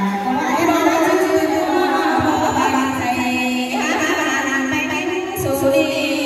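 Women singing a Thái folk song (hát Thái) into microphones over a sound system, with long, wavering held notes.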